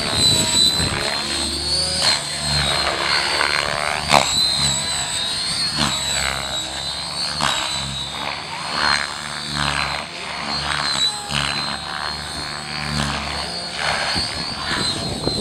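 Radio-controlled model helicopter in flight, its motor and rotors giving a steady high whine over a rushing rotor noise, the pitch wavering as it manoeuvres.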